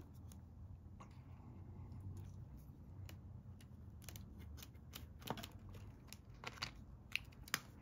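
Faint, scattered small clicks and scrapes of a felt-tipped flux pen dabbing flux onto the pads of an LCD controller circuit board, a few sharper clicks between about five and seven and a half seconds in, over a low steady hum.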